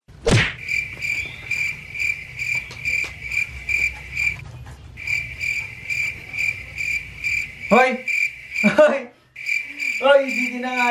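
Cricket chirping: an even, pulsing chirp repeated about two to three times a second, broken off briefly twice. A quick rising swoosh opens it, and near the end there are two short bending cries.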